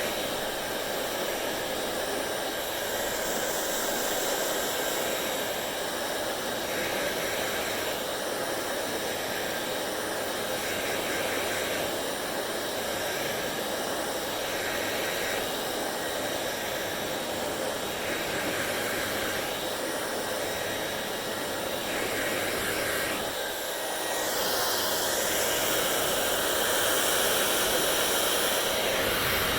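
Hair dryer running steadily with a continuous rushing blow, its tone wavering every second or two. About 24 seconds in it becomes louder and higher.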